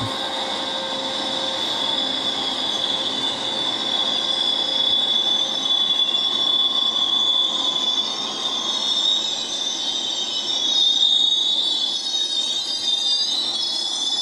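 Amtrak Superliner passenger cars rolling slowly past, their steel wheels squealing against the rail in a steady high-pitched screech. Several higher, wavering squeals join in about halfway through and are loudest near the end.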